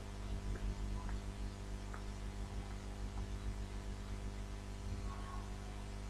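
Steady mains hum with low hiss, and a few faint short ticks.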